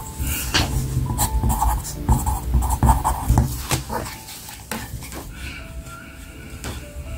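Pencil scratching short marks on paper, with a plastic ruler knocked and slid into place on the sheet. Busy scratching and tapping in the first few seconds, then quieter handling. A few thin held tones sound over it.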